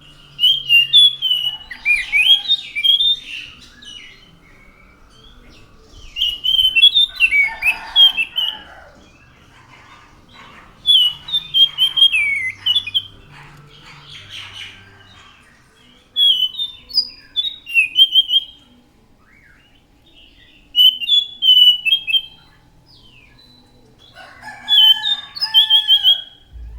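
Anis macan thrush singing: six bursts of fast, warbled song phrases, each a couple of seconds long, with pauses of a few seconds between them.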